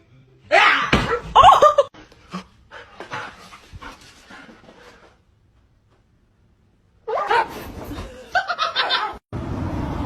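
A dog's voice and people laughing, with a gap of near silence a little past the middle and an even noise starting near the end.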